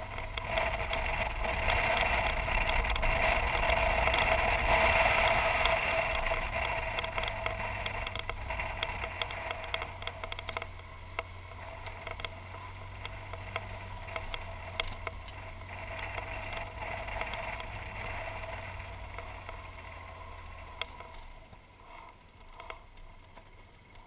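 BMW R1200GS Adventure's boxer-twin engine running while riding a gravel dirt road, mixed with wind rush and tyre noise, and scattered ticks of stones. The sound grows quieter near the end.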